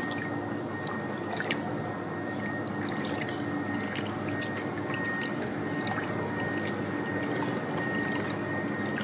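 Water splashing and dripping in a plastic basin as hands scoop and pour it over a baby monkey, with many small drips and splashes.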